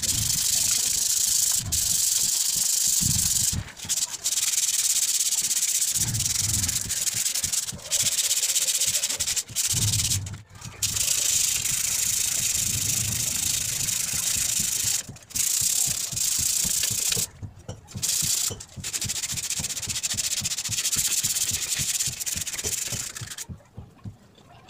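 Sandpaper rubbed by hand back and forth along the rusty steel tube legs of an office chair's five-star base, a continuous scratchy rasp broken by short pauses. It stops about a second before the end.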